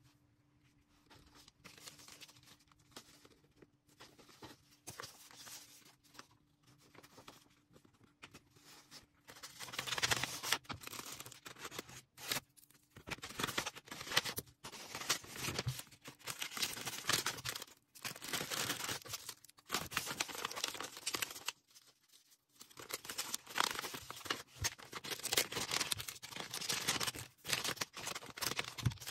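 Packaging being handled while an order is packed: rustling, crinkling and tearing, faint at first, then louder and busier from about a third of the way in, with a short pause a little past two-thirds in.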